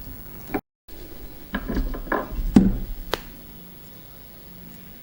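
Close-up sounds of eating raw oyster: a cluster of wet mouth and handling noises with two sharp clicks, then a quieter stretch with a faint steady hum. There is a brief dead-silent gap near the start.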